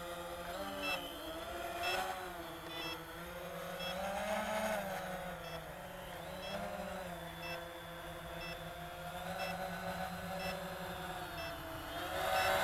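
Quanum Nova quadcopter's electric motors and propellers droning, the pitch wavering up and down as the throttle changes in flight.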